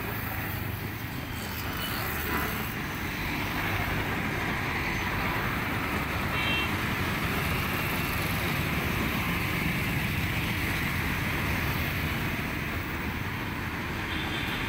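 Steady roadside traffic noise: the even rumble and hiss of passing vehicles, with a brief high-pitched tone about six and a half seconds in.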